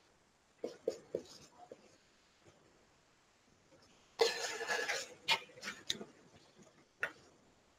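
Dry-erase marker scratching and squeaking on a whiteboard in short strokes as an equation is written. The longest and loudest stretch of writing comes about four seconds in.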